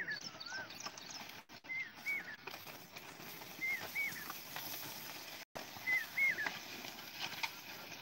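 A bird calling over and over, a short two-note call about every two seconds, over open-field noise.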